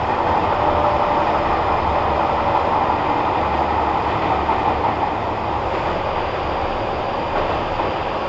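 Nagoya Municipal Subway N3000 series train running at steady speed, heard from inside the car: an even rumble of wheels on rail and running noise. A faint whine comes and goes in the first few seconds.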